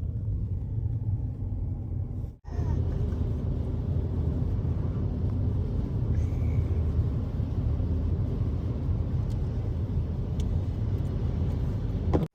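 Car driving: a steady low rumble of engine and tyres, cut off briefly about two seconds in and again abruptly at the end.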